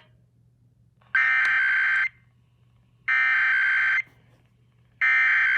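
Emergency Alert System SAME header broadcast on FM radio: three identical bursts of buzzing digital data tones, each just under a second long, about a second apart. The header opens a station's relay of the monthly EAS test.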